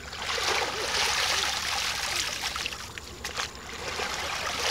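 Shallow muddy water sloshing and splashing as it is scooped through by hand and with a plastic basket. The splashing eases briefly a little past the middle and picks up again near the end.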